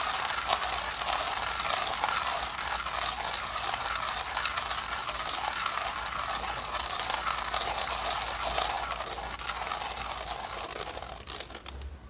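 Millwright hand coffee grinder being cranked, its burrs crushing coffee beans in a continuous crunching rasp that rises and falls evenly with the turns of the handle. It stops just before the end, as the last of a 10-gram dose of beans is ground through.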